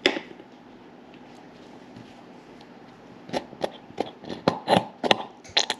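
A bowl is set down on a granite countertop with a knock. About three seconds later comes a quick run of short, sharp squirts from a plastic squeeze bottle of yellow mustard being squeezed into the bowl.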